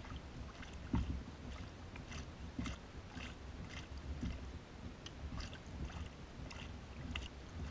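Kayak paddle strokes: a double-bladed paddle dipping and pulling through calm water, with small splashes and drips about every half second over a low rumble, and a thump about a second in.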